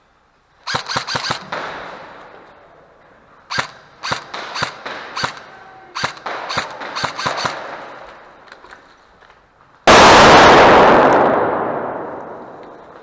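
Airsoft guns firing in quick bursts of sharp cracks, three volleys that echo in a large hard-walled space. About ten seconds in comes a single very loud bang whose echo dies away over about three seconds.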